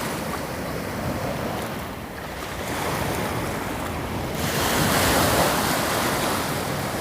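Sea waves washing in at the shore, with wind buffeting the microphone; the surf swells louder a little past halfway.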